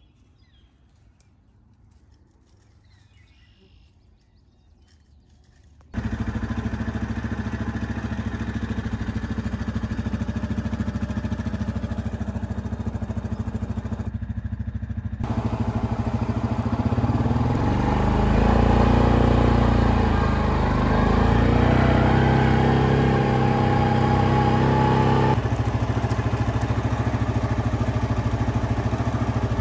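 Yamaha Grizzly 700 ATV's single-cylinder engine running, cutting in suddenly about six seconds in after a quiet stretch. It grows louder and its pitch rises and falls in the middle, then settles to a steady run.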